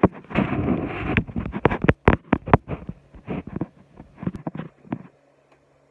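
Handling noise from a phone being set up and adjusted: a rustle, then a run of irregular knocks and taps against the phone that stop about five seconds in.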